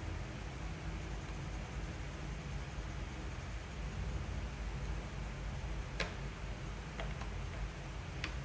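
Steady hiss and low hum, with four light, sharp clicks in the last few seconds, the first the loudest.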